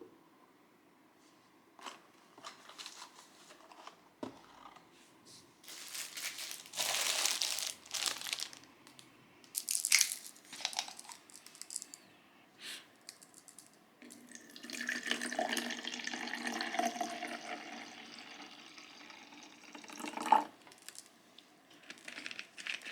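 Household handling noises: crinkling and rustling with a few sharp clicks, then several seconds of steady water-like hiss from about fourteen seconds in.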